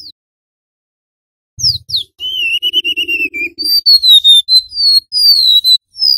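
Golden-bellied gerygone (remetuk laut) singing: a run of high, thin whistled notes, most sliding downward, with one held wavering note among them, starting about a second and a half in.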